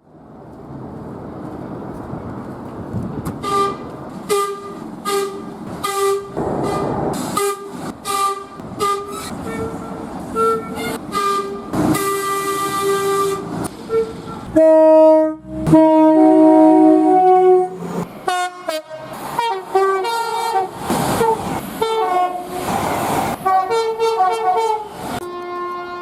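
Locomotive air horns sounding many short blasts in quick succession, each a chord of several notes, over the rumble of a moving train. About halfway through, a louder, lower horn chord sounds for about a second, and then the short blasts resume.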